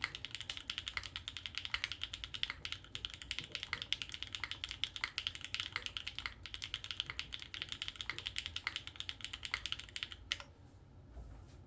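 Fast, steady typing on a custom 60% mechanical keyboard with Gateron Deeping switches, a polycarbonate plate, GMK keycaps and no foam. The typing stops about ten seconds in, on one last keystroke.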